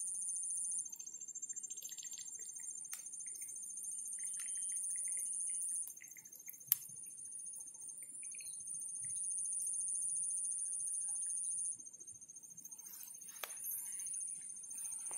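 Insects trilling, high-pitched and steady: one keeps up a fast pulsing trill while a higher continuous buzz stops and starts several times. A few faint clicks sound over them.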